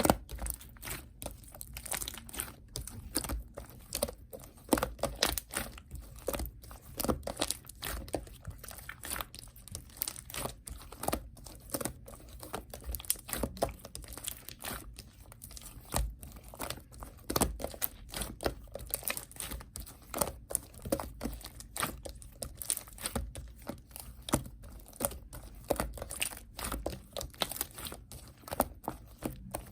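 Purple slime being played with by hand: an irregular run of sticky crackling and popping clicks, several a second.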